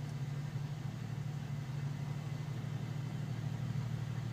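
Vehicle engine idling steadily, a low even hum heard from inside the vehicle's cabin.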